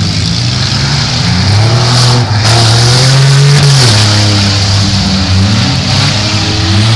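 Several demolition-derby cars' engines running and revving together, their pitch rising and falling as they accelerate and ease off.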